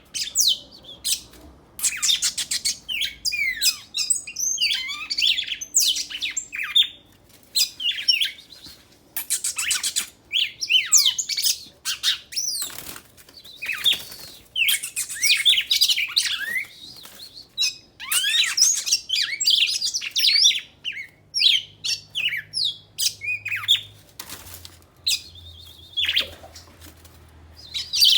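Two songbirds singing against each other in a song duel: rapid high chirps, trills and sliding whistled notes in bursts with short pauses.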